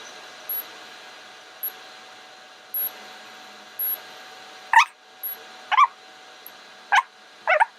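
A dog whining or yelping four times in the second half, each a short call that bends in pitch. Under it, faint short high-pitched electronic beeps repeat about once a second.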